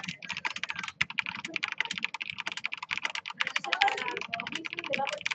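Fast typing on a Corsair K65 RapidFire mechanical keyboard with Cherry MX Speed Silver linear switches and DSA keycaps: a rapid, continuous stream of keystroke clacks, about eight to ten a second, with a brief pause about a second in.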